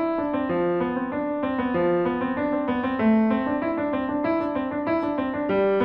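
Piano music: a slow, gentle sequence of sustained notes and chords.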